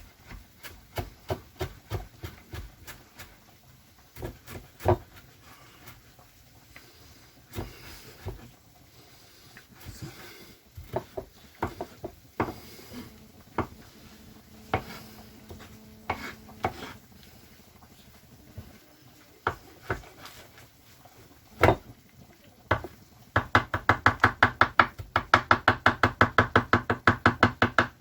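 Knife chopping fresh coriander on a cutting board: scattered, uneven knocks of the blade on the board, then in the last few seconds a fast, even run of chops.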